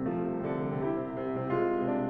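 Solo grand piano playing a classical piece, with sustained chords and notes changing several times a second and a swell in loudness about one and a half seconds in.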